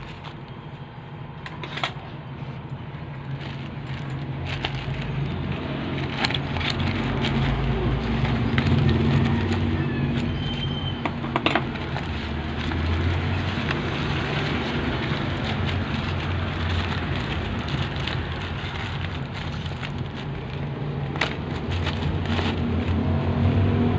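A plastic courier mailer being torn and crinkled open by hand, with scattered sharp crackles and rips. Under it is a steady low engine-like rumble that swells a few seconds in and then holds.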